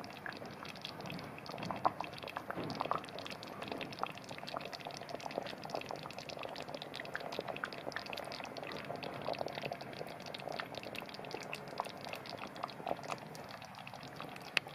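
Thickened red-wine sauce of a coq au vin simmering in an uncovered stainless steel pot, bubbles breaking the surface in a steady run of small pops.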